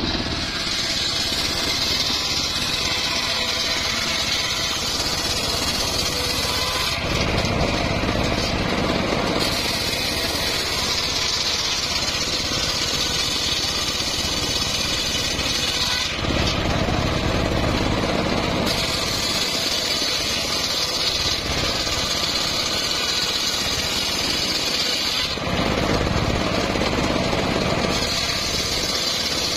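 Homemade engine-driven bench circular saw ripping a teak log into planks, the large blade cutting with a loud, steady hiss over the engine. Three times the cutting sound breaks off for two or three seconds between passes, leaving the engine and the free-spinning blade.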